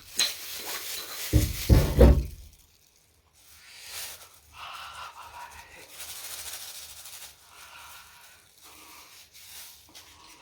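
Close-miked eating sounds: wet chewing and smacking of food, with a few heavy low bumps in the first two seconds, then quieter chewing.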